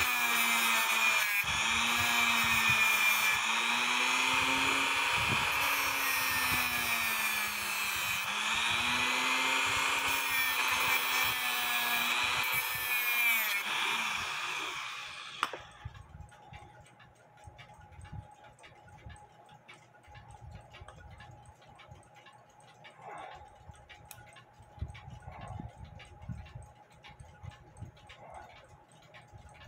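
Handheld rotary tool (Dremel type) with a sanding drum running at high speed, grinding a burr off a tab of a brass clock plate; its whine wavers up and down in pitch as the plate is pressed against the drum. The motor stops about halfway through, leaving faint clicks of the clock movement being handled.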